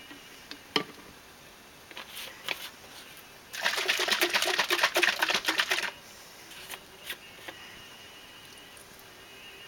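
Plastic bottle of painting medium shaken hard by hand, giving a fast run of rattling knocks, about ten a second, for roughly two and a half seconds from about three and a half seconds in. A single sharp click comes under a second in.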